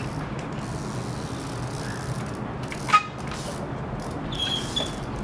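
Trials bike hopping on a concrete ledge: one sharp clack about three seconds in as the bike lands, with a brief metallic ring, then a short high squeak near the end, over steady outdoor background noise.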